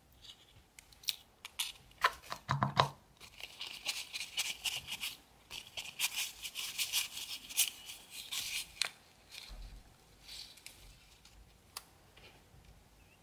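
Small nail scissors snipping a paper nail form, a few sharp clicks about two seconds in. Then a lint-free nail wipe rubbing and crinkling over the gel nail for several seconds, wiping off the uncured sticky layer with cleanser.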